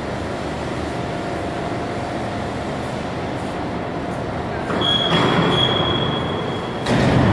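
Steady mechanical running noise of factory machinery. It grows louder about four and a half seconds in, a steady high-pitched squeal runs for about two seconds, and the noise rises sharply again near the end.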